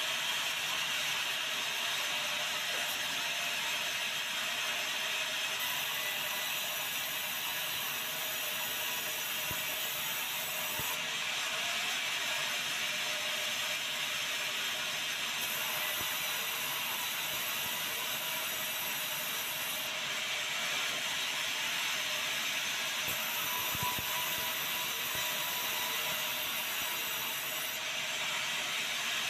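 Sawmill band saw running steadily while resawing white meranti timber into boards. A high hiss comes and goes several times, each time for about five seconds.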